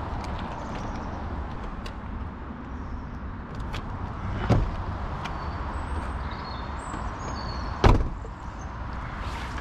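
Door of a Volkswagen Golf Mk5 three-door hatchback shut with a solid thump just before the end, after a lighter clunk about halfway through, over steady low background noise.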